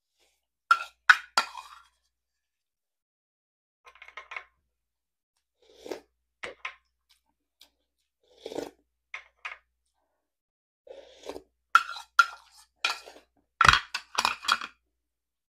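A ceramic spoon clinking and scraping against a ceramic rice bowl in short clusters, the loudest about a second in and near the end, with close-up chewing and mouth sounds between.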